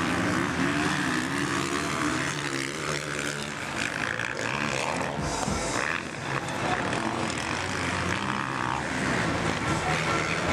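Several motocross bike engines revving hard, their pitch rising and falling as the bikes accelerate and shift through the dirt track.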